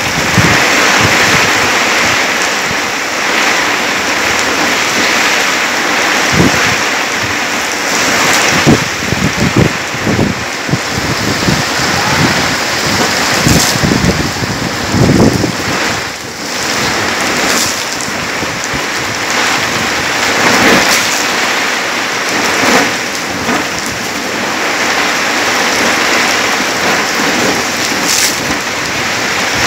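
Heavy rain pouring steadily in a thunderstorm, a dense, loud hiss. Through the middle there is a run of short, low rumbling thumps.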